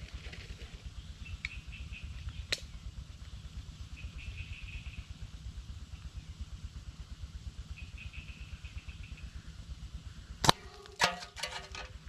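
Slingshot shot knocking over an aluminium drink can: near the end a sharp crack, then the can clatters with a metallic ring and a short rattle as it falls over.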